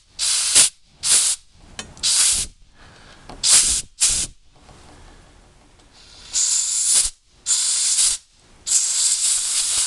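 Compressed-air blow gun hissing in short blasts through a small brass carburetor part to clear its passages. There are about five quick blasts, then three longer ones near the end.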